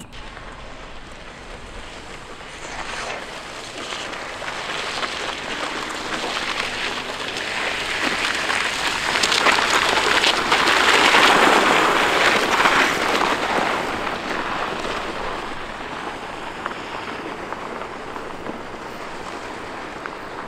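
A rider in motorcycle jacket and SA1NT motorcycle jeans dragged along asphalt and gravel on a tow rope behind a car: a hissing, crackling scrape of fabric and grit on the road surface, an abrasion test of the jeans. It swells to its loudest about halfway through as he slides past, then eases off.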